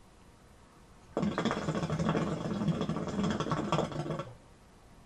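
Hookah water base bubbling as smoke is drawn through the hose: a steady gurgle that starts about a second in and stops after about three seconds.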